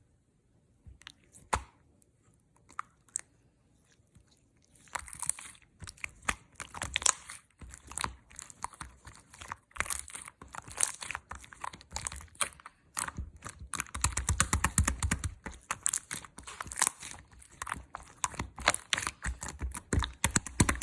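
Orange slime being squished and pressed by hand, giving a run of small crackling clicks and pops. The clicks are sparse for the first few seconds, then come thick and fast from about five seconds in.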